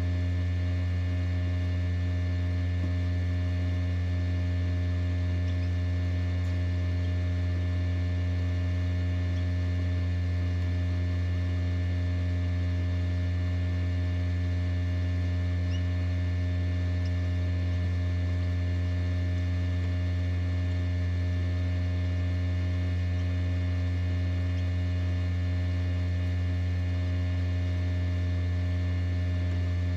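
Steady electrical hum of an incubator, a strong low drone with several constant higher tones over it and no change in level.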